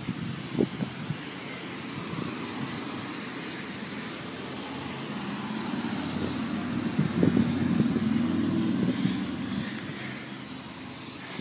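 A road vehicle passing on the street: its engine and tyre noise swell over a few seconds, peak about two-thirds of the way in, then fade away. A few light knocks are heard near the start.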